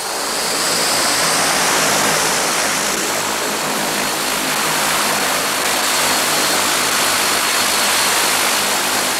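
Light floatplane's piston engine and propeller running steadily: a loud, even rushing drone with a low engine hum beneath it.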